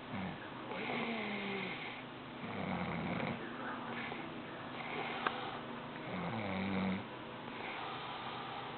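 A man snoring, three snores about three seconds apart, each a low drawn-out sound lasting under a second.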